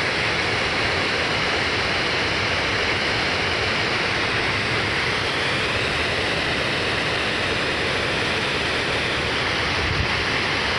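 Water pouring over a low river dam's spillway: a steady, unbroken rush of whitewater.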